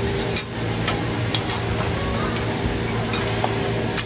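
Water poured onto a hot flat-top iron griddle, hissing and boiling off into steam, while a metal spatula scrapes across the plate with a few sharp clinks.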